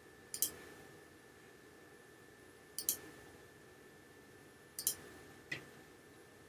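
Computer mouse button clicks: three crisp clicks about two seconds apart, each a quick press-and-release pair of snaps, then a softer single click shortly after the third.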